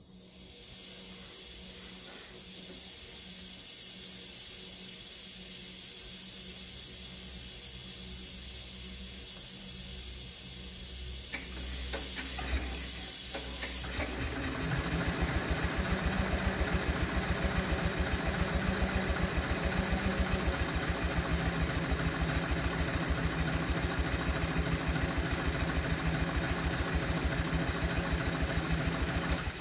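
Compressed gas hissing steadily through the hydrogen delivery setup of a 1965 Onan generator. About halfway in, the engine starts turning over with a fast, even pulsing that runs alongside the hiss and stops near the end.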